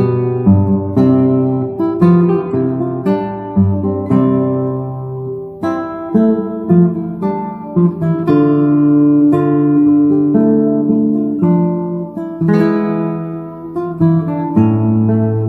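Background music: acoustic guitar, plucked notes and strums, each note struck sharply and fading.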